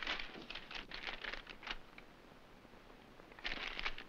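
Faint rustling and light clicks, several through the first two seconds and a few more near the end, with a quieter gap between.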